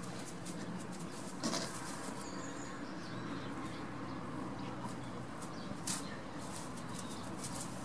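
Goat kids and their doe moving about on straw: scattered light rustles and hoof steps over a steady background hum, with two sharper knocks about a second and a half in and near six seconds.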